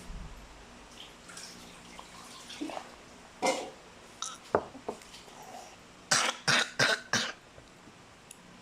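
A person with a cough coughing: one cough about three and a half seconds in, then a run of four or five quick coughs about six seconds in.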